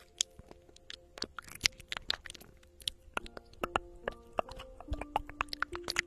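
Rapid, irregular crackling clicks of a metal ear-cleaning tool scraping and tugging at earwax inside the ear canal, with soft background music of long held notes underneath.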